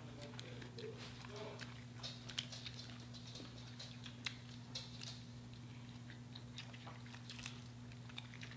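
Close-up chewing and biting of crispy fried chicken: irregular small crunches and mouth clicks. A steady low hum runs underneath.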